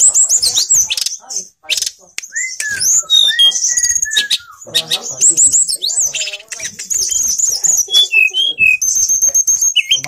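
Caged tledekan gunung songbird singing vigorously, a fast run of high chirps and slurred notes. Lower whistled glides come about two and a half seconds in, and a steady high trill near the end.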